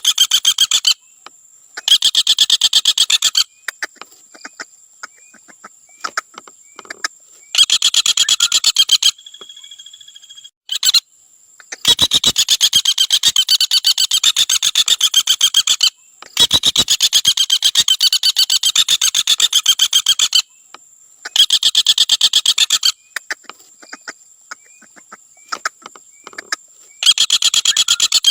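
Common flameback woodpecker giving its 'trotol' rattle call: bursts of rapid, evenly repeated notes lasting one to four seconds each, separated by short pauses.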